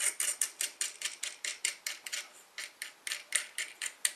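A metal nut being spun by hand down a threaded bolt: a quick, steady run of sharp little metallic clicks, about five a second, with a brief pause about halfway.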